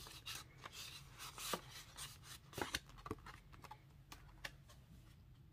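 Faint rustling and light clicks of paper banknotes being slid into a clear plastic cash envelope and the envelopes being handled, mostly in the first four seconds or so.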